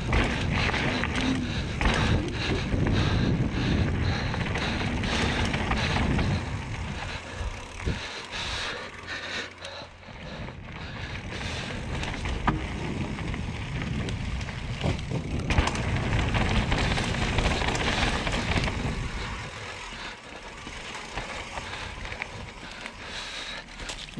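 Mountain bike descending a dirt trail, heard from a camera on the bike: tyres rolling over dirt, wind on the microphone, and the bike rattling and knocking over bumps. It is quieter for the last few seconds.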